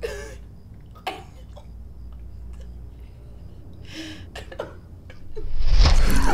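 A badly wounded woman's ragged, choking gasps, a few short breaths spaced out over several seconds. Near the end a loud swell of horror score rises suddenly and drowns them out.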